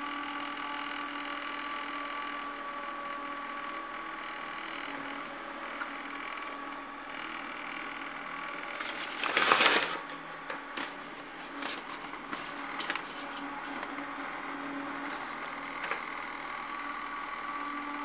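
Small household exhaust fan's electric motor running on a rotary dimmer: a steady hum with several fixed high tones, fading a little mid-way and stronger again near the end. About halfway there is a brief loud rustle, followed by a few light clicks.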